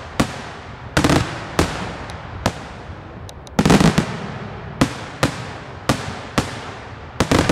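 Daylight fireworks shells bursting overhead in a barrage of sharp bangs, each trailing off in an echo. They come roughly two a second, with quick crackling rattles of bursts about a second in, about three and a half seconds in, and near the end.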